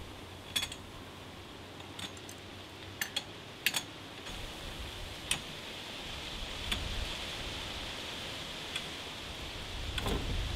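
An adjustable wrench clicking and clinking against a locking nut and the metal frame tube of a compost tumbler as the nut is tightened: about eight or nine sharp clicks, irregularly spaced, over a steady faint hiss.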